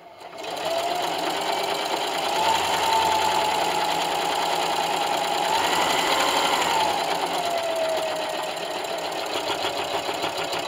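Electric sewing machine running a straight stitch down a folded fabric strap. It starts about half a second in, and its motor whine rises and falls in pitch as the sewing speed changes.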